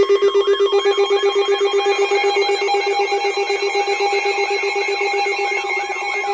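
Emergency alert attention tone sounding: a layered electronic alarm of a fast-pulsing low tone, with a steadier higher tone coming in about a second in and a siren-like sweep rising and falling about three times a second.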